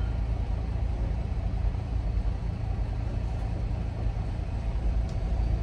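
Semi-truck's diesel engine running steadily, a low rumble heard from inside the cab.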